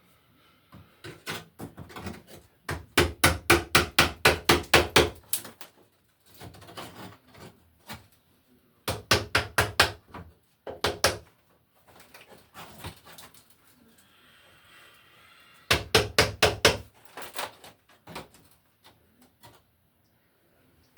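Rapid hammer blows, about four to five strikes a second, in three bursts, knocking at a rusted electrical box to break it loose from the wall, with lighter tapping and scraping between the bursts.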